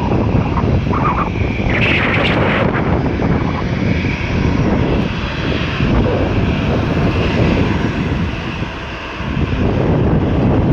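Airliner's engines running loud and steady, with a brief higher whine about two seconds in.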